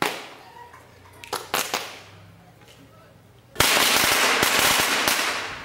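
Fireworks and firecrackers going off. A sharp bang opens, dying away, then a few quick cracks follow about a second and a half in. About three and a half seconds in comes a loud dense crackle, the loudest part, which fades over about two seconds.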